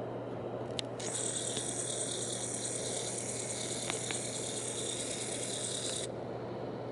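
Coolfan Huracan ceiling fan running with a steady hum. A high hissing rush starts abruptly about a second in and cuts off about six seconds in, with a couple of light clicks.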